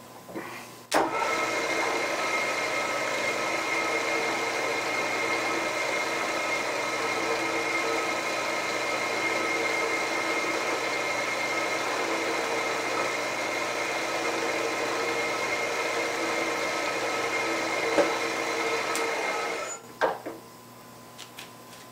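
Tree 2UVR milling machine spindle running steadily while a small twist drill bores into an aluminum bar. It starts abruptly about a second in and stops near the end.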